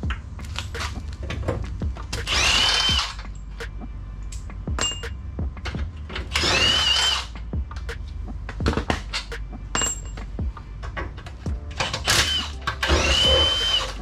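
A handheld power tool runs in four short bursts, its whine climbing and then holding each time, the last two close together near the end. Scattered clicks and knocks of metal tools fall between the bursts.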